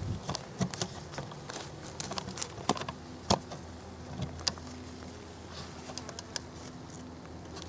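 Honey bees buzzing around an open hive, a steady hum, under scattered sharp clicks and knocks of hive parts being handled; the loudest click comes a little under halfway through.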